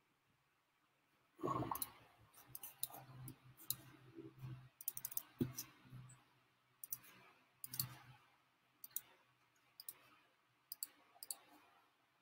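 Faint, irregular clicking of a computer mouse with a few small handling knocks, as a video clip is set up for playback.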